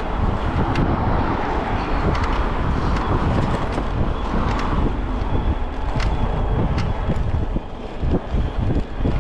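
Wind buffeting the microphone while riding an e-bike on the road, with low road rumble and scattered sharp clicks or knocks.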